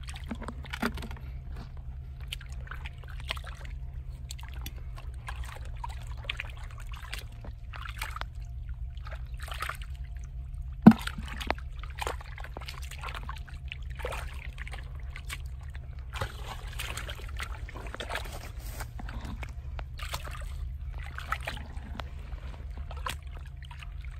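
Hands sloshing and splashing through shallow muddy water, groping in the mud for fish, in irregular short splashes. One sharp knock stands out about eleven seconds in, over a steady low hum.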